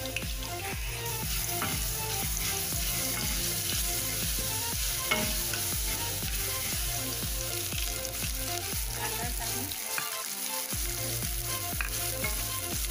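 Ginger-garlic paste and mustard seeds sizzling in hot oil in a kadhai, with a spatula stirring and scraping the pan. Chopped onions are then frying in the oil as they are stirred.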